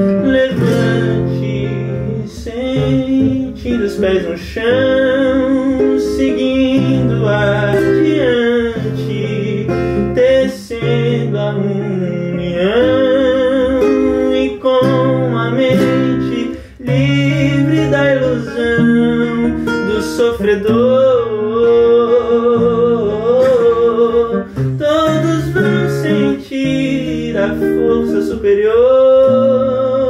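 A man singing to his own acoustic guitar. The guitar plucks chords that change every second or two under a long, sliding vocal line with a wavering vibrato on the held notes.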